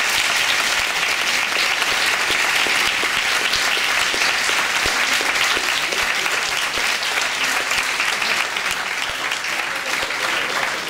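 Audience applauding, dense and steady, easing off slightly near the end.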